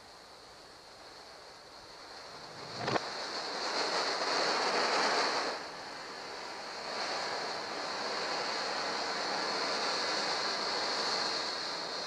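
Steady rushing, hissing noise like wind or surf from an old film soundtrack played backwards. It swells loudest a few seconds in and then settles to an even hiss. A single sharp click comes just before the swell.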